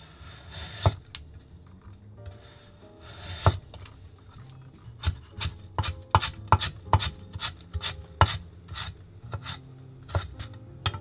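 Chef's knife cutting a carrot on a wooden cutting board. A few slower slicing cuts, the blade scraping through the carrot, give way about five seconds in to quick chops knocking on the board, about three or four a second, as the slices are cut into thin strips.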